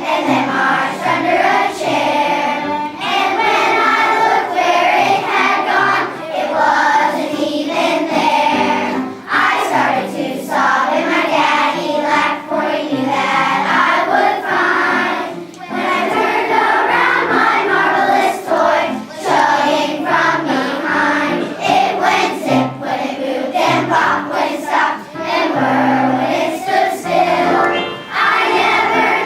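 A children's choir singing, in continuous phrases with brief pauses between lines.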